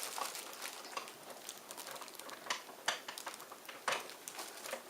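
Faint rustling of box packaging being handled, with a few sharp clicks about two and a half, three and four seconds in.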